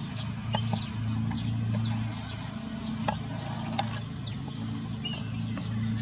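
Common starling singing: a varied string of short falling whistles and chirps with a few sharp clicks, over a low steady hum.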